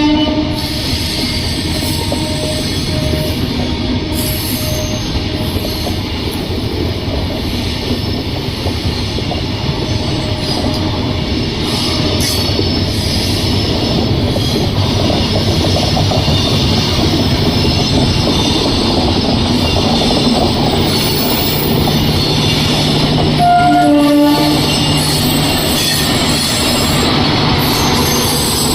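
Indian Railways train running on the track with a steady rumble of wheels and rails. Its horn sounds briefly at the start and again about twenty-four seconds in.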